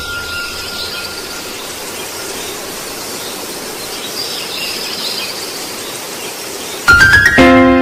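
A steady hiss-like noise with a thin high tone for the first second or so. About seven seconds in, music comes in suddenly and loudly, settling into held notes.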